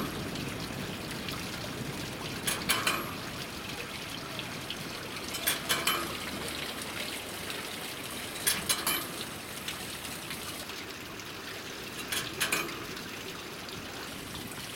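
Water trickling and splashing steadily in a water-clock sculpture, with a short cluster of sharp clicks about every three seconds.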